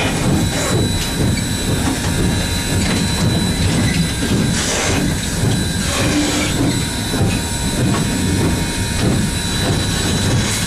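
Steam locomotive No. 630 under way, heard from inside its cab: a loud, steady mechanical din from the running locomotive and its wheels on the rails.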